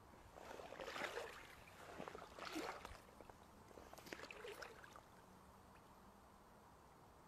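Wading steps through shallow pond water, four soft sloshes about a second and a half apart.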